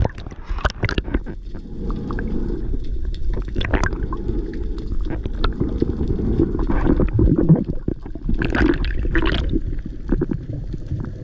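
Water heard from underwater through an action camera's housing: a muffled rushing and gurgling with scattered clicks, and a brighter rush about eight and a half seconds in.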